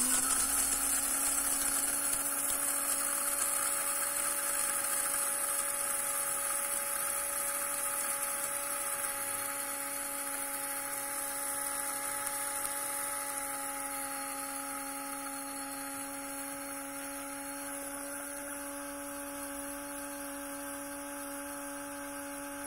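Hamilton Beach adjustable electric blade coffee grinder running a fine-grind cycle on coffee beans, a steady high-speed motor whine at a constant pitch. It starts right at the press of the button and grows slightly quieter as it runs.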